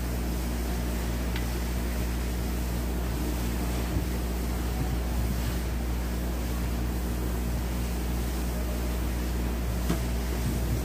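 Steady low mechanical hum from a running machine in the background, with a couple of faint clicks as the straight grinder's plastic housing halves are handled, once about four seconds in and again near the end.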